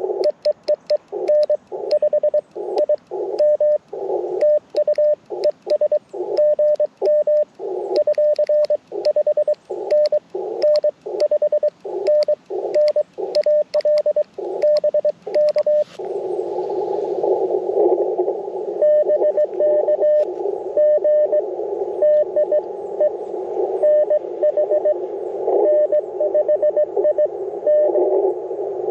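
Morse code (CW) from an Icom IC-705 transceiver. For about the first half, the radio's sidetone beeps as Morse is sent on twin paddles, with the paddles clicking and bursts of receiver hiss between the elements. About halfway through, the radio switches to receive: a steady hiss in the narrow CW filter with another station's Morse code beeping through it.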